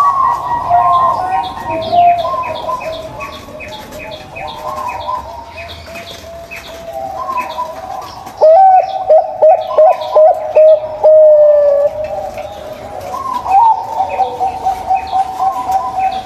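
Zebra doves (perkutut) cooing, several birds overlapping in wavering coos, with a louder run of quick staccato notes about halfway through. Short high chirps repeat quickly in the background.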